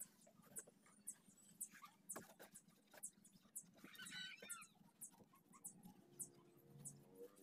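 Near silence: faint outdoor ambience with small high ticks and a brief cluster of chirps about four seconds in.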